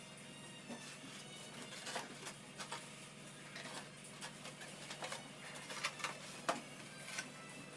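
Irregular light clicks, taps and scrapes of hands handling small materials at a workbench, over a steady low hum.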